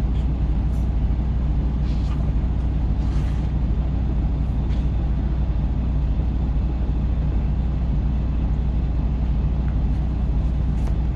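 Steady low rumble of a parked semi-truck's diesel engine idling, heard inside the cab. There are a few faint rustles and clicks from a puppy gnawing on a shoe.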